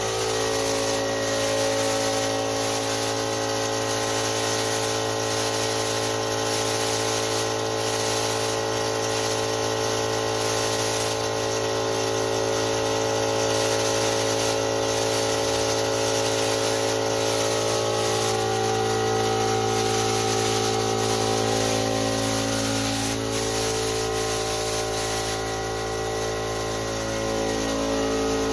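Small electric air compressor running steadily with a hum, under the continuous hiss of a paint spray gun spraying.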